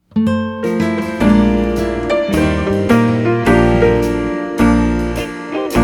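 Background music: piano or keyboard with a steady bass, struck notes about every half second to a second.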